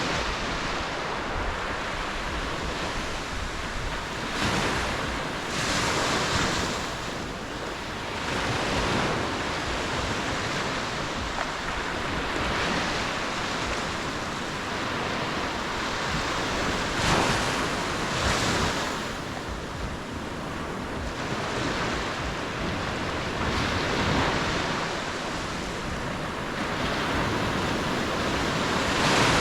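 Ocean surf: a continuous wash of breaking waves that swells and falls back every few seconds.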